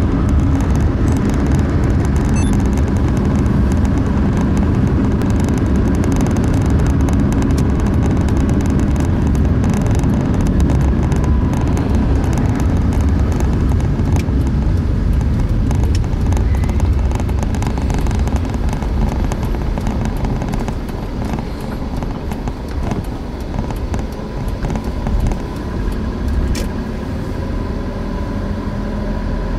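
Road and engine noise heard inside a moving car's cabin: a steady low rumble of tyres and engine that eases off in the last third as the car slows down.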